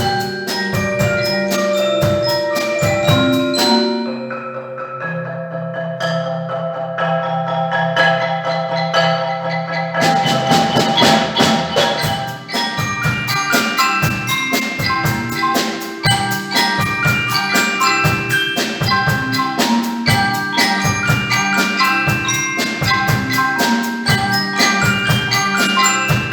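Percussion ensemble playing, with mallet instruments sounding a tune over a steady beat of drum strikes. About four seconds in it thins to held, ringing mallet notes, and about ten seconds in the full ensemble comes back in with fast, even strikes.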